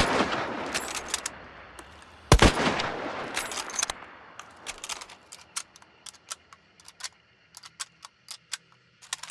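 Mosin–Nagant bolt-action rifle (7.62×54mmR) firing: one shot right at the start and a second about two and a half seconds in, each with a long echoing tail. Scattered sharp metallic clicks follow through the rest.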